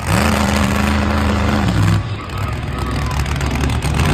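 Instigator monster truck's engine revving hard. It holds high for about a second and a half, eases off about two seconds in, then builds again near the end.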